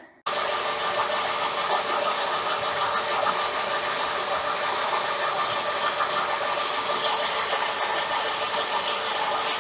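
Metal lathe running with a drill bit cutting into the spinning metal workpiece: a steady machining noise with a constant whine in it, starting abruptly just after the beginning.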